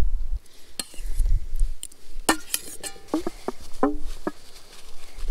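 Metal utensils clinking and scraping against a foil dinner packet during eating: a handful of sharp clicks with brief ringing, spread over a few seconds.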